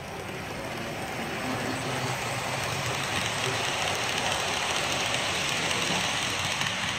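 Model freight train pulled by Delaware & Hudson GP38-2 and GP35 model diesel locomotives running past on the track: a steady rumble of wheels on rails and running motors. It grows louder as the train approaches and is loudest about three to six seconds in as it passes close by.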